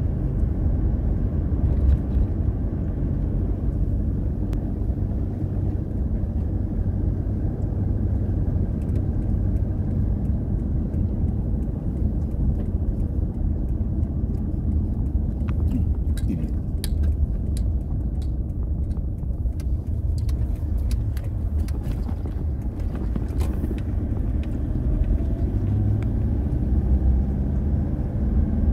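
Vehicle driving on a gravel road, heard from inside the cabin: a steady low rumble of engine and tyres, with a scatter of sharp clicks around the middle.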